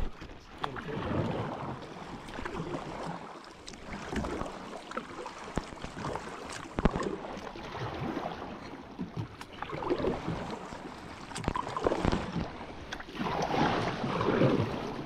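Kayak paddle strokes through calm river water, a splash and swish every second or two, growing louder near the end.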